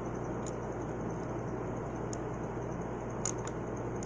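Faint small clicks of fingers working a tiny screw into a laptop's hard drive bracket, the loudest about three seconds in, over a steady hum and hiss.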